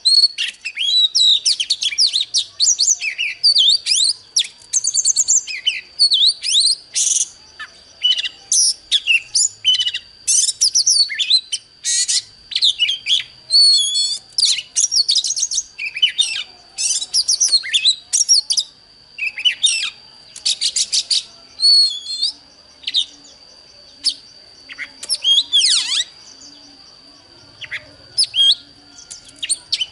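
Oriental magpie-robin singing a fast, varied song of whistles, trills and chirps in quick phrases with short gaps. A steady thin high tone comes in about halfway through and holds under the song.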